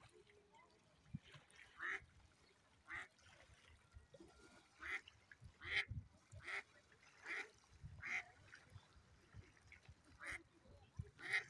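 Mallard duck quacking: about nine short, faint quacks at uneven intervals of roughly a second.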